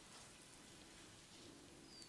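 Near silence with faint scratchy rustles of fingers working in hair, and a short high squeak near the end.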